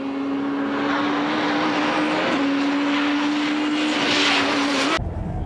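Race car engines held at high revs as the Skyline GT-R R32 and the Sprinter Marino touring car climb past, one steady drone with a brief dip in pitch about two seconds in. Near the end the sound cuts suddenly to a deep engine rumble heard inside a car.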